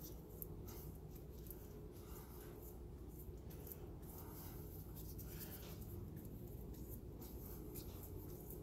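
Wheel bearing being hand-packed with grease: gloved hands press and roll it through a palmful of grease, giving faint squishing, rubbing and small clicks of the rollers over a faint steady hum.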